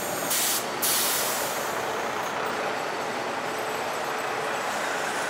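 Diesel-hauled passenger train rolling through a station, a steady rumble and rush of wheels on rails, with a short hiss about half a second in.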